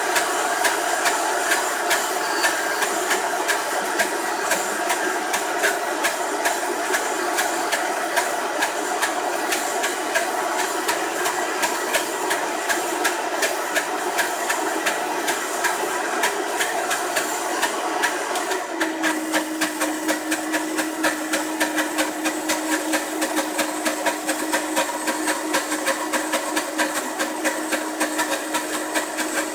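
19-year-old Vitamix blender running steadily with a fast rattle, grinding coconut flakes into creamy coconut butter. About two-thirds of the way through, a steady hum joins the motor noise.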